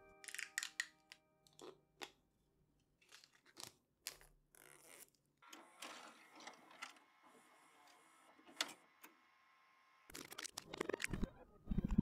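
Keystrokes on an Alice-layout custom mechanical keyboard with Strawberry Milk Lite linear switches on an acrylic plate. The clacks come in scattered, irregular clusters, sparse in the middle and denser and louder near the end.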